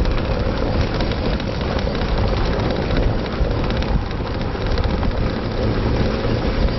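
Steady rumble of a wheeled dog cart rolling fast over a gravel and dirt track behind a running sled-dog team, with wind on the microphone.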